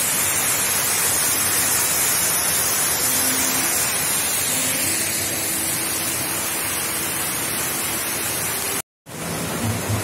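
Steady rushing of a waterfall mixed with the hiss of light drizzle. The sound drops out for an instant near the end, then resumes.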